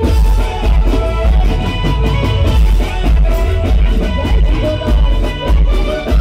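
Live garba music played loud through a PA system: a heavy, steady drum beat under a keyboard melody.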